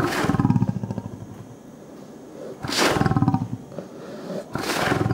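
Male lion roaring at close range, three loud calls about two seconds apart, each starting suddenly and trailing off in pulses. It is a show of anger at the people at its cage, as the visitors take it.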